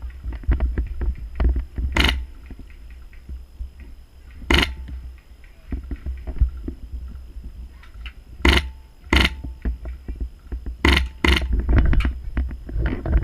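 Polarstar HPA-powered airsoft rifle firing single shots, about seven sharp cracks at irregular intervals, some in quick pairs. Under them run a constant low rumble and small clicks of gear handling.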